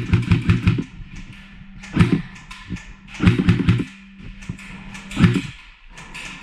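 Airsoft gun firing: a short rapid burst at the start, a single shot about two seconds in, another short burst about three seconds in, and one more shot a little after five seconds.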